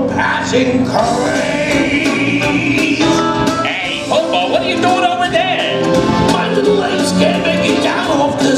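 Live stage-show music with singing over a steady percussion beat.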